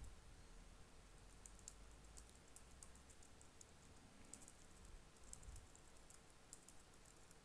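Faint typing on a computer keyboard: irregular keystroke clicks in short runs as words are typed.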